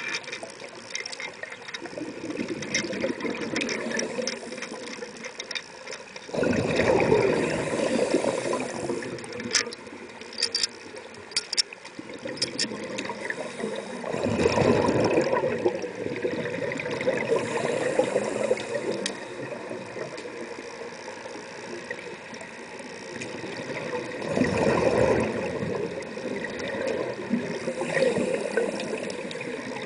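Scuba diver's exhaled bubbles rushing from the regulator, heard underwater in three louder bursts several seconds apart, with a few sharp clicks in between.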